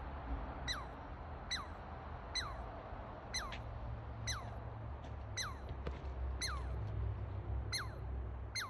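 Chipmunk chipping: short, sharp chips, each falling quickly in pitch, repeated at a steady pace of about one a second, nine or so in all.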